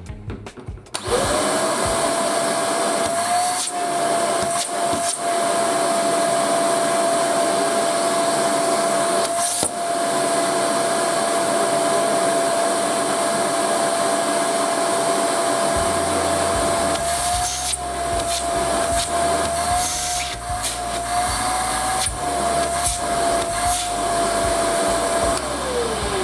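Kärcher WD 3 wet and dry vacuum cleaner switched on. Its motor spins up about a second in and runs steadily with a high whine that wavers slightly at times. Near the end it is switched off and starts winding down, its pitch falling.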